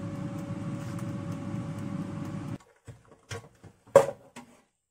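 Philips air fryer running: the fan's steady whirring hum with a faint whine, cutting off suddenly about two and a half seconds in. Then a few light knocks and one loud clack near the end as the frying basket is pulled out.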